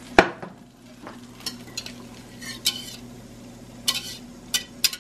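Metal whisk beating eggs in a bowl, with sharp clicks and taps of the whisk against the bowl, one loud one just after the start and several more spaced through the rest. Beneath them, a faint sizzle from the hot frying pan with melted butter as the beaten eggs go in.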